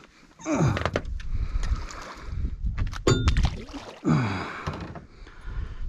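Water splashing and lapping against a small aluminium fishing boat while a bream is handled and let go over the side. A sharp metallic clank comes about three seconds in, and a man gives a few short wordless grunts.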